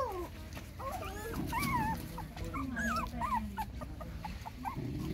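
Young puppies whimpering, a stream of short high squeaks that rise and fall in pitch, several a second and at times overlapping.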